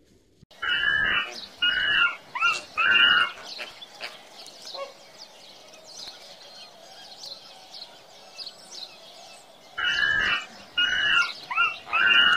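A monkey giving a quick run of four short, harsh calls, then the same run of four calls again near the end. Birds chirp in the background between the two runs.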